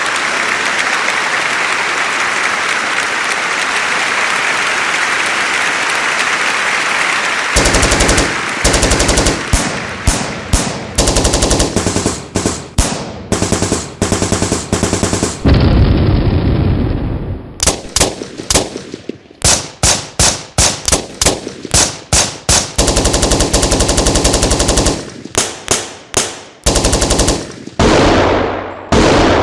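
Machine-gun fire sound effects: a steady hiss for about the first seven seconds, then repeated bursts of rapid shots with echoing tails, and a deep rumble about halfway through.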